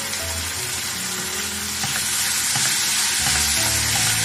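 Chopped onion, garlic, capsicum and tomato with sauces sizzling in a nonstick frying pan while being stirred with a silicone spatula; the sizzle grows louder about two seconds in.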